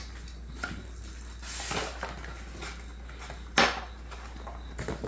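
A boxed glass cologne bottle being handled and unpacked: light clinks, taps and rustles of packaging, with a short hiss about one and a half seconds in and a sharp, louder noise about three and a half seconds in.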